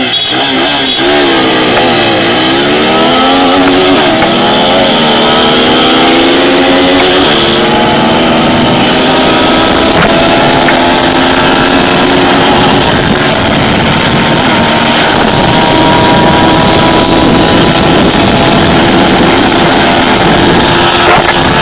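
TVS Apache RTR 200 4V's single-cylinder engine at full throttle in a drag run, revving up through several quick upshifts in the first seven seconds or so, then pulling slowly higher in top gear. Heavy wind rushes over the microphone at speed.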